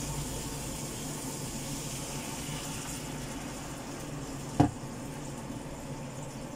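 Pan of mackerel tuna simmering and sizzling in a little water on a gas hob, a steady hiss, with one sharp knock about two-thirds of the way through.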